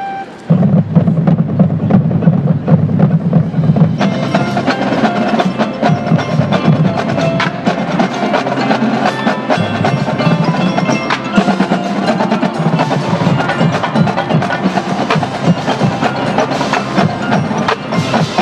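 Marching band percussion section playing a loud percussion feature: heavy drumline strokes, with marimba, xylophone and bells joining about four seconds in.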